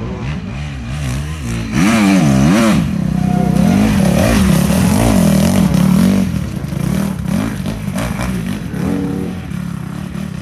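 Enduro dirt bike engine revving up and down with quick, repeated throttle changes. It grows loud about two seconds in, stays loud for about four seconds, then fades as the bike moves away.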